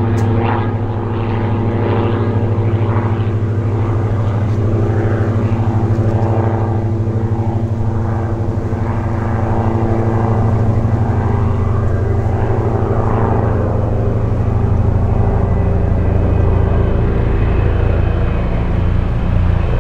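EC135-type helicopter with a shrouded tail rotor, running at flight power as it lifts off and flies toward the microphone. A steady low rotor thrum with a fine rapid pulse, growing a little louder in the second half.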